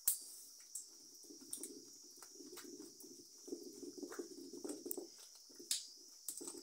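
Wooden stirring stick working a thick peanut-butter sauce in a clay pot: a sharp knock of the stick against the pot right at the start, then scraping and stirring with frequent soft knocks and ticks, and a second clear knock near the end.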